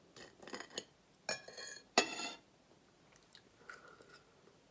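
Metal knife and fork clinking and scraping against a ceramic plate while food is cut, in a few short bursts. The loudest is a ringing clink about two seconds in.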